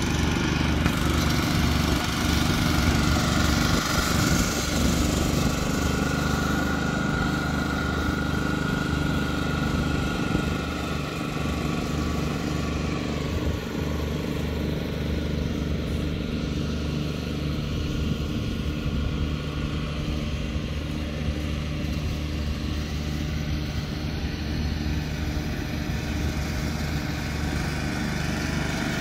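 Walk-behind reel greens mower running steadily as it cuts a putting green: a small engine's even hum with a haze of cutting and rolling noise above it.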